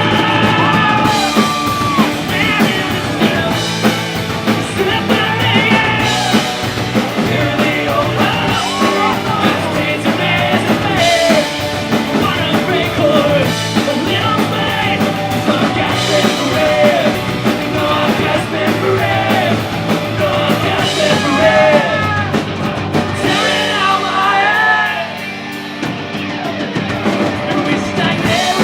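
Rock band playing live with a lead singer over guitars and drums. About three-quarters of the way through, the drums and low end drop away for a couple of seconds, then the full band comes back in.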